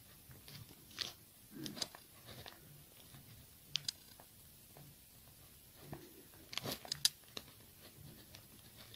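Faint scratching and clicking of a ballpoint pen writing on lined notebook paper, in short irregular strokes with pauses, a small cluster of them a little after halfway.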